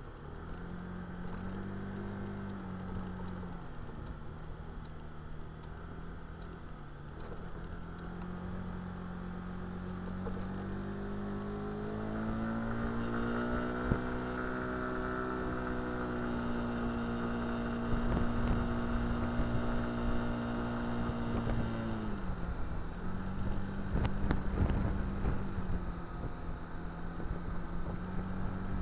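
Kymco Dink Street scooter's single-cylinder four-stroke engine running under way. Its note climbs about a third of the way in, holds steady, then drops back about three quarters through. Wind rumbles on the microphone in the second half.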